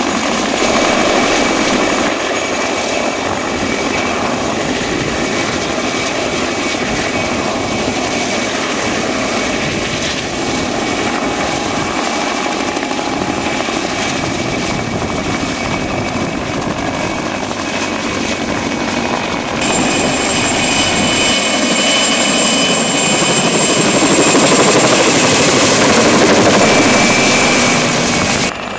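Mil Mi-2 helicopter hovering low and flying with its twin turboshaft engines running: steady rotor noise with a fixed high whine. The tone shifts abruptly about two-thirds through, and it grows louder near the end.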